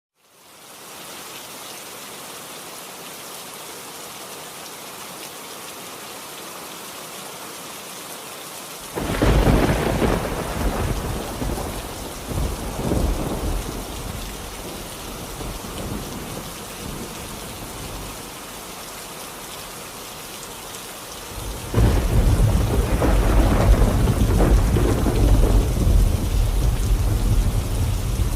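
Steady rain hiss with two rolls of thunder: a sudden rumble about nine seconds in that fades over several seconds, and a louder, longer rumble starting a little after twenty seconds.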